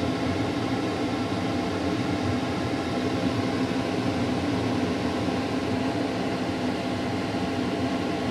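Steady mechanical hum with an even hiss, from a running machine such as a fan motor.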